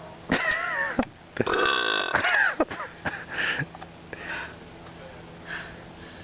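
A girl burping loudly twice in quick succession, deliberate long belches with a wavering pitch, the second longer than the first. A few short, quieter sounds follow.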